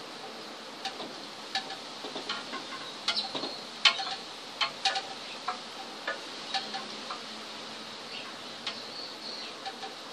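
Hot wood-burning tip crackling and ticking irregularly as it scorches into the wood, over a steady hiss.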